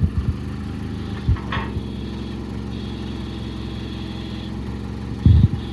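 Forklift engine idling steadily, with a few short low thumps, the strongest near the end.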